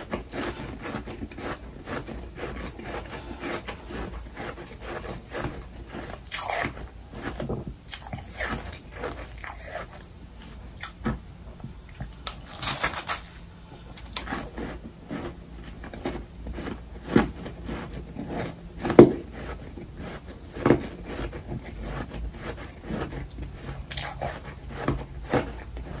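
Biting and chewing soft, powdery humidifier freezer frost, a dense run of crackly crunches with several louder bites in the second half.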